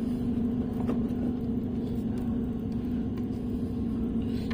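A steady low mechanical drone with a constant hum tone, with a few faint clicks over it.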